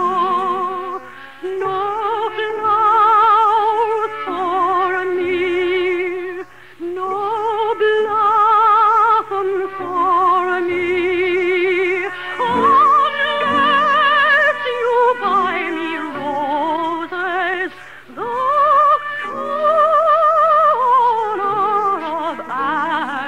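Operatic singing with heavy vibrato: long held notes in phrases broken by short breaths, over a soft musical accompaniment, with the narrow, dull sound of a 1950s radio broadcast recording.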